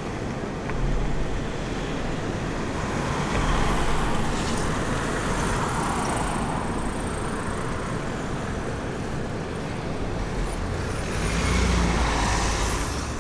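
Road traffic: vehicles passing, the noise swelling about four seconds in and again near the end.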